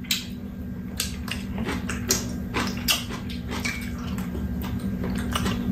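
Eating sounds: chewing and mouth noises while eating tteokbokki, with a metal spoon and chopsticks clicking against the dishes in many short, irregular clicks.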